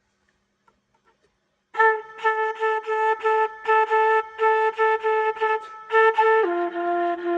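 Flauto traverso (wooden baroque flute) playing. After a near-silent start with a few faint clicks, it comes in about two seconds in with a run of short, separately tongued notes on one pitch. Near the end it steps down to a lower note that it holds steadily.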